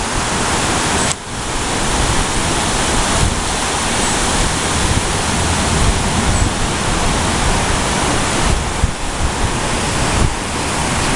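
Strong storm wind rushing in gusts, a loud steady hiss with irregular low rumbling buffets on the microphone; it drops out briefly about a second in.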